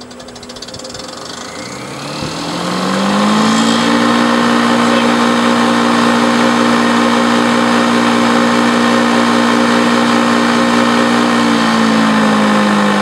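Patriot electric wood chipper's motor switched on and running empty: it spins up with a rising whine over about two seconds, then runs at a steady whirring hum, its pitch dipping slightly near the end.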